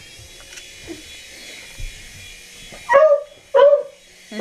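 A small electric toy helicopter's motor whirs steadily after spinning up. A dog barks twice, loudly, about three seconds in.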